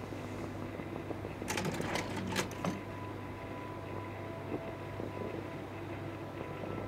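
Slide projectors running with a steady fan hum. About a second and a half in, a short run of mechanical clicks and clacks lasts about a second, typical of a projector's slide-change mechanism.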